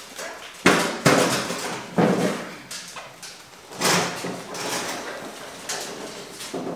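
Clunks and rattles as a 2017 KTM 250 XC-F dirt bike is pulled off its stand by its rear grab handle and moved, with sharp knocks about a second, two seconds and four seconds in.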